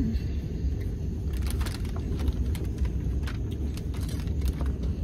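Steady low rumble of a TGV Lyria high-speed train running, heard from inside the carriage. From about a second in, a run of light clicks and scrapes from a plastic fork against a plastic food tub.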